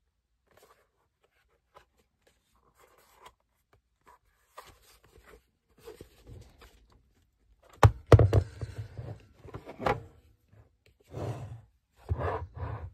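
Large hollow plastic Lego Galidor module being handled and pulled apart: scattered light clicks and scrapes of plastic, then a louder cluster of sharp plastic clacks and hollow thuds about eight to ten seconds in, and more scraping handling near the end.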